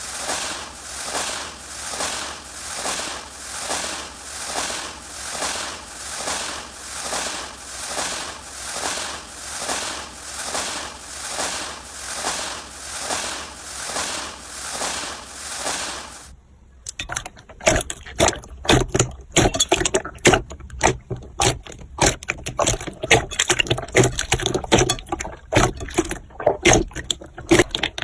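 Slime being worked by hand: first an even, rhythmic squishing, about three strokes every two seconds, then, after a sudden change about two-thirds through, irregular crackling and popping clicks.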